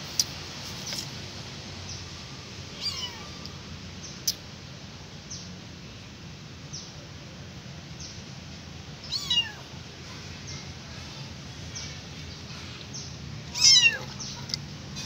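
Young tortoiseshell kitten meowing three times, each a high cry that falls in pitch; the third, near the end, is the loudest.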